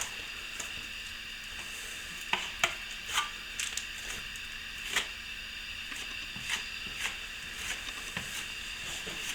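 Plastering trowel working a thin coat of wet plaster onto the patch: short, irregular scrapes and clicks of metal on plaster, over a steady high hiss.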